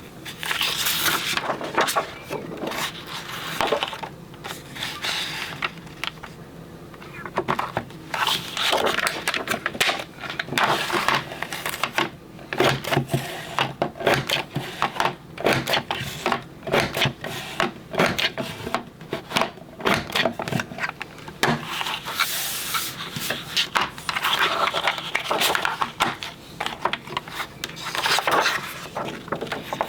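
Paper border punch cutting cardstock strips, in sped-up playback: many quick clicks and knocks of the punch, with scraping as the paper is slid along and repositioned.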